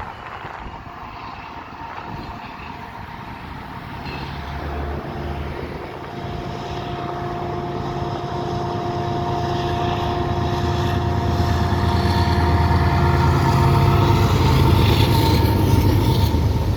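A CPKC freight train's lead diesel locomotives, a GE ES44 and an AC4400, approaching and running under load. The low engine rumble grows steadily louder, with a steady whine for several seconds in the middle.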